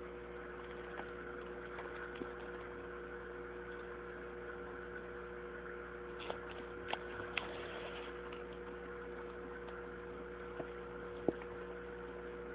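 Steady electrical hum of running aquarium equipment, with a faint hiss and a few light clicks, the sharpest one near the end.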